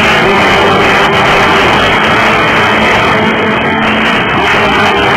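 Background rock music with guitar, loud and steady.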